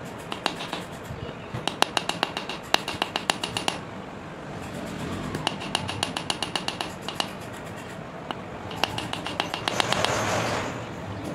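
Small hammer tapping a silver ring on a pointed steel stake: three runs of quick, light metallic taps with a slight ring. Near the end there is a brief scraping rush.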